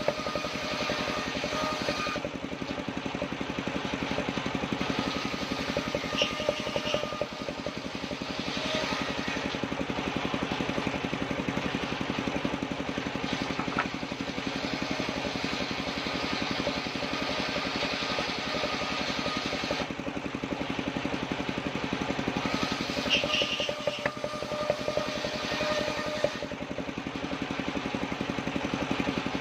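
Engine of an assembled circular saw rig running steadily, with a few short knocks now and then.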